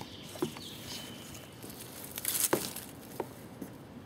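Rustling with a few light clicks and knocks as a hand handles the nylon tie-down strap and the bamboo strapped to the back of a dirt bike. The loudest rustle comes about two and a half seconds in.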